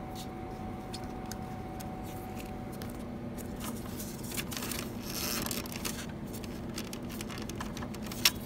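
Gloved fingers handling a laser printer's plastic pick-up roller and feed parts: light rustling and small plastic clicks over a steady low hum, with a stretch of rustling about halfway through and one sharp click near the end.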